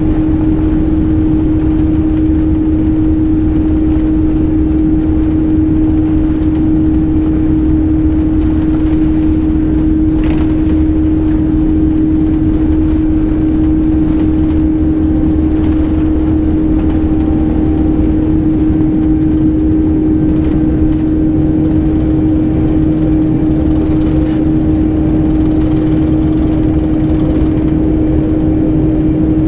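Airliner turbofan engines at takeoff thrust heard inside the passenger cabin: a loud, steady roar with one constant hum running through it.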